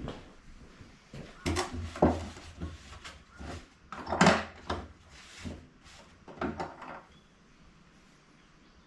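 Knocks and scrapes of wooden furniture being handled, in an uneven run starting a second or so in and stopping about seven seconds in.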